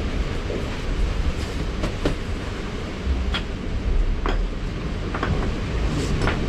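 Wind rumbling on the microphone over a steady wash of sea surf, with a handful of short, sharp clicks scattered through.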